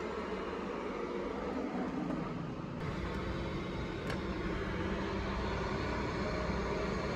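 Steady hum of road traffic from the city below, heard through an open window, with a faint click about four seconds in.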